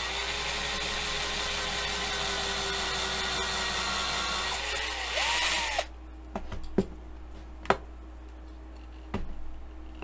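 Small electric drill running steadily as it drills out the rivet of a diecast toy car. Its pitch rises briefly before it cuts off about six seconds in, and a few sharp clicks and knocks follow.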